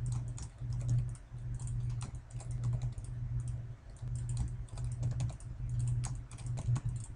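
Irregular clicking of a computer mouse and keyboard keys as mesh edges are picked one by one, over a steady low hum.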